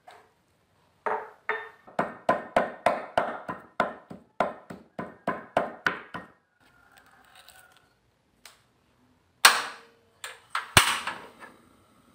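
Knife chopping fermented fish (prahok) on a wooden cutting board: a run of quick, even strikes, about four a second, for about five seconds. A few louder knocks and clicks follow near the end.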